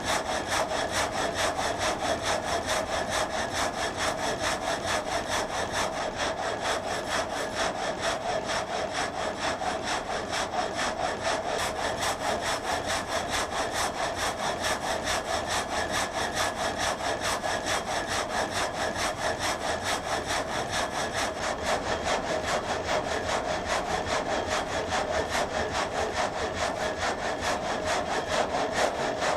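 Water-wheel-driven vertical frame saw cutting through a log, its blades sawing in a steady, fast, even rhythm of strokes.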